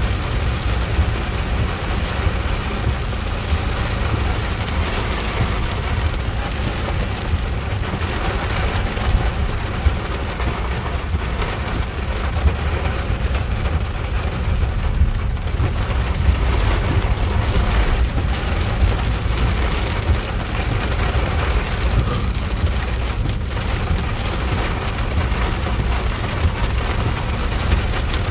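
Heavy rain falling on a moving car's roof and windscreen, heard from inside the cabin over a steady low rumble of road and engine noise.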